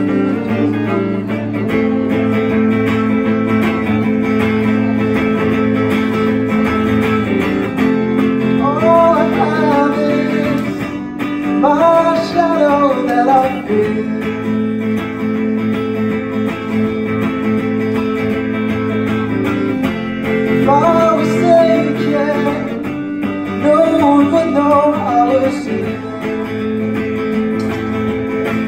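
Electric guitar played through an amplifier in an instrumental passage of a song: steady chords, with a higher melodic line coming in four short phrases.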